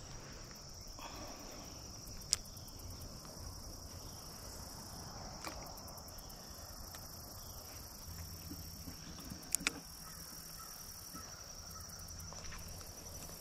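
Insects trilling steadily at a high pitch, with a few sharp clicks: one early on and a close pair about two-thirds of the way through.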